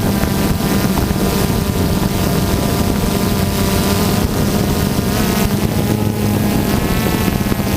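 Multirotor drone's propellers and motors running steadily in flight, a buzzing hum whose pitch wavers slightly, with some wind on the microphone.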